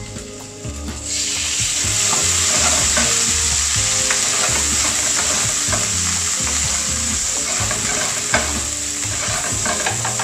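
Diluted tomato purée hitting hot oil with garlic and onion in a non-stick frying pan, setting off a loud sizzle about a second in that keeps going, while a spatula stirs and scrapes through the pan.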